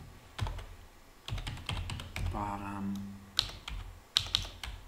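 Typing on a computer keyboard: irregular keystroke clicks, a quick run of them about a second and a half in, and sharper, louder ones near the end.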